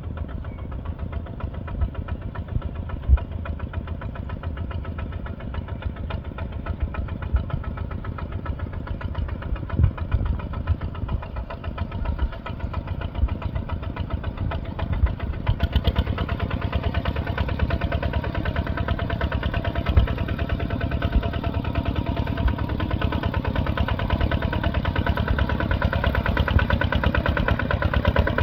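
Bulldozer's diesel engine running steadily, with a few sharp knocks. About halfway through it grows a little louder and harsher.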